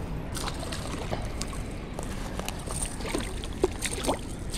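Water lapping and dripping with a few light knocks and short plinks over a low steady rumble, as a just-caught fish is handled at the water's edge or in a small boat.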